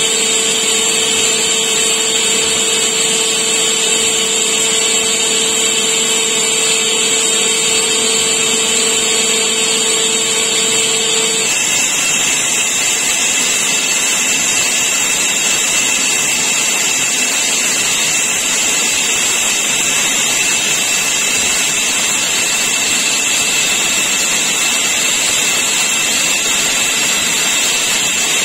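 Metal lathe cutting a large bronze-coloured bushing with a carbide insert: the steady whine of the machine under the hiss of the cut, with chips coming off. The pitch of the cutting sound changes about eleven seconds in, where a lower hum drops out and a higher whine comes in, as the cut moves from the bore to the outside of the part.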